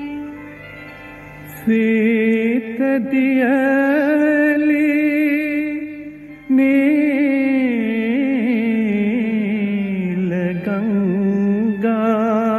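Music: a melody of long held notes that waver and glide between pitches. It comes in about two seconds in after a soft lead-in, breaks off briefly just past the middle, then continues.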